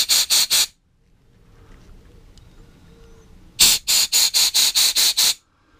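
Compressed-air blow gun fired in quick short blasts, about five a second, through the small jet passages of a lawnmower carburetor, a hissing squeal. One run of blasts stops under a second in, and another starts about three and a half seconds in and lasts nearly two seconds.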